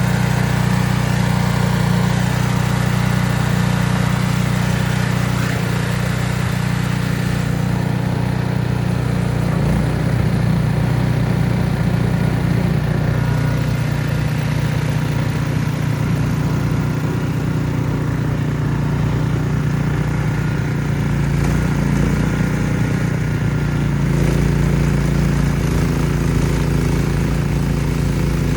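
Ariens Platinum SHO 24-inch two-stage snowblower running steadily under load while clearing snow, its engine note shifting about ten seconds in and again near the end.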